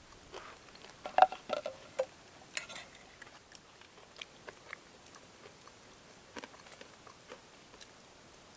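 A person chewing a meal of fried fish, with small scattered clicks and taps. The loudest come in the first few seconds.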